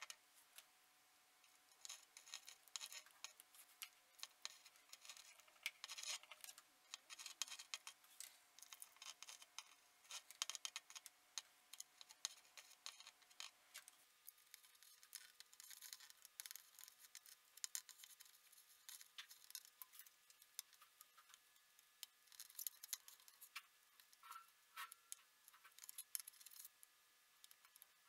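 Faint, irregular scratching and ticking of a soldering iron tip and metal tweezers working on a circuit board's processor pins as the chip is heated to desolder it with Wood's alloy.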